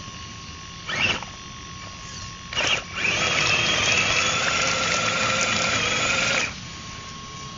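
Electric motor and drivetrain of a radio-controlled scale crawler truck whining as it drives through mud. Two short blips of throttle come first, then a steady whine for about three and a half seconds that cuts off sharply.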